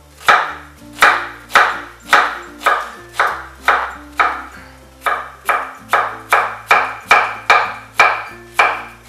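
Kitchen knife chopping an onion on a plastic cutting board: an even run of sharp knife-on-board strikes, about two a second, getting a little faster in the second half.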